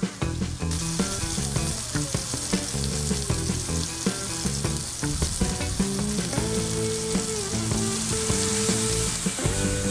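Venison backstrap searing in hot oil in a cast-iron skillet, sizzling steadily; the sizzle swells up about a second in.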